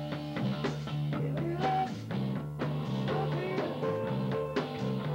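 Rock band playing live: a drum kit with cymbals keeping a steady beat over a running bass line, with electric guitar above.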